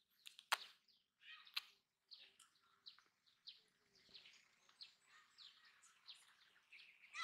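Faint bird chirps: many short calls, one after another, with two sharp clicks in the first two seconds.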